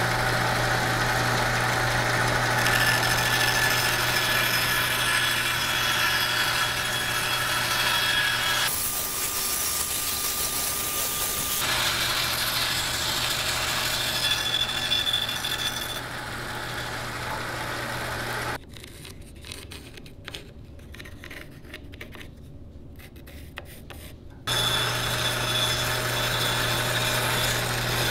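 Bandsaw running with a steady motor hum while its blade rasps through a dried banksia seed pod. The sound changes abruptly twice. About two-thirds through it drops much quieter for several seconds, leaving faint crackling, then the saw sound returns.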